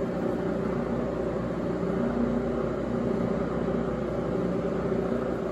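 Knee milling machine's motor and spindle running steadily, not cutting, while the knee is set for the final light pass. A steady hum with no cutting sound.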